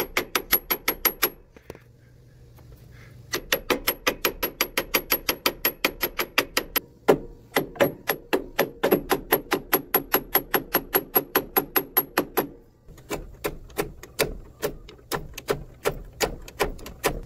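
Rapid, evenly paced hammer blows on the steel hub of a chain sprocket on a conveyor gear-motor shaft, about four to five a second, each with a short metallic ring. The blows come in runs with brief pauses, as the sprocket is knocked to work it loose for removal.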